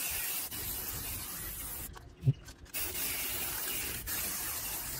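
Aerosol spray-paint can hissing in two long bursts, with a short break about two seconds in where a single sharp knock is the loudest sound.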